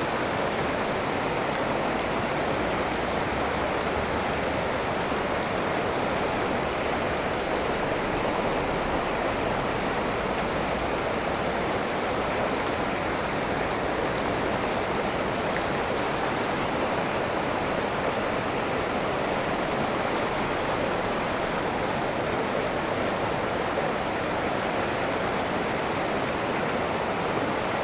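Fast mountain creek rushing over rocks: a steady, even water noise with no breaks.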